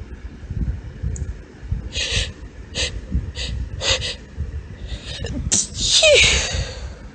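A woman's high-pitched sneeze, preceded by four or five short, sharp hitching breaths spaced about half a second apart starting around two seconds in. The sneeze itself comes about six seconds in and is the loudest sound.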